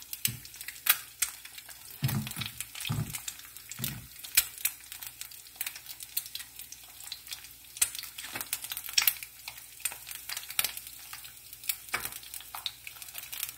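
Egg frying in oil in a nonstick pan, a steady sizzle with irregular sharp crackles and pops. A few soft low thuds come in the first few seconds.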